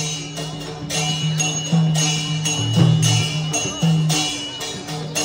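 Traditional Newari dance music of drums and cymbals: low drum notes beat in a steady rhythm while metal cymbals strike and ring over them.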